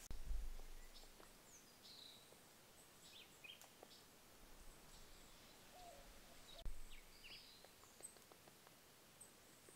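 Birds chirping faintly: short, scattered high chirps and down-sliding whistles every second or two over a low hiss. A low thump just after the start and a sharper, louder knock about two-thirds of the way through.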